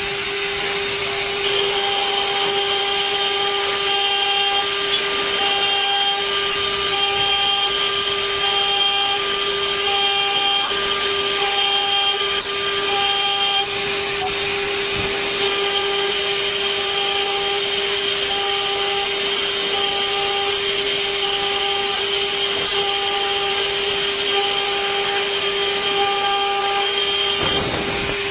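CNC engraving machine's spindle running while its cutter mills a metal workpiece. The spindle gives a steady whine, with a higher tone that cuts in and out roughly once a second as the cutter works. A single sharp click comes about halfway through.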